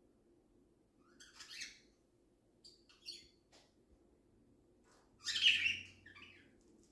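Lutino cockatiel chirping in three short bouts: one about a second in, a briefer pair of chirps around three seconds, and the loudest bout about five seconds in.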